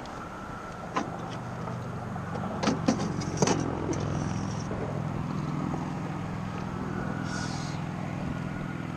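Sharp plastic knocks and clatter of a fish and a measuring ruler being handled on a kayak's deck: one knock about a second in and a quick cluster around three seconds in. Under them a steady rush of wind and choppy water, and a steady low hum.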